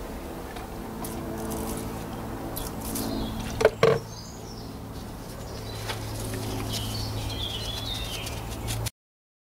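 Emery paper scratching and rubbing against the engine casting around the camshaft adjuster bore, scouring off burnt oil. There are two sharp knocks close together just before the middle, and the sound cuts off abruptly near the end.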